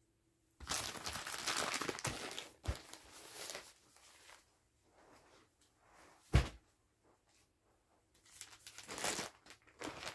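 Plastic-wrapped packs of adult diapers crinkling as they are handled and stacked, in a first long stretch and again near the end. A single sharp thump about six seconds in is the loudest sound.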